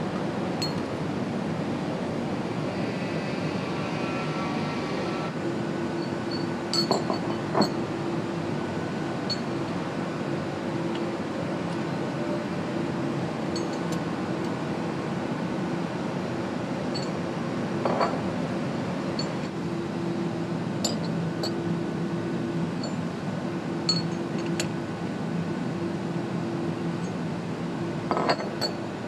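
Metal connecting rods and their caps clinking now and then as they are handled and set down on a workbench, over a steady machine hum.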